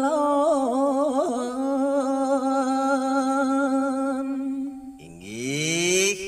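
A man singing a Balinese geguritan in the Ginada meter, unaccompanied, drawing out one long note that wavers with ornaments at first and then holds steady. About five seconds in, the voice slides up in pitch into the next note.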